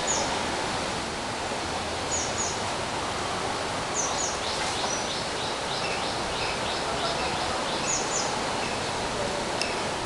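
Steady outdoor background hiss with a small bird chirping: short high chirps, often in pairs, every few seconds, and a quicker run of about a dozen chirps in the middle.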